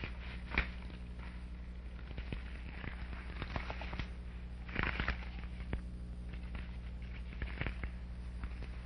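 Scattered irregular clicks and crackles, with a short cluster about five seconds in, over a steady low hum.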